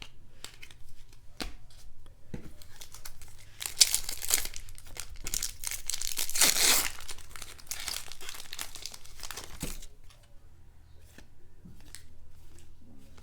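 A foil wrapper on a 2018 Bowman baseball card pack being torn open and crinkled, loudest midway through, followed by a few faint light clicks near the end.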